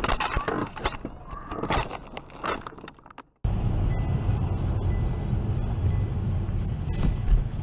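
Rattling, handling clicks and knocks, as a phone camera is handled. Then a cut to dashcam audio: a car's cabin road and engine rumble, with a faint high-pitched electronic whine coming and going.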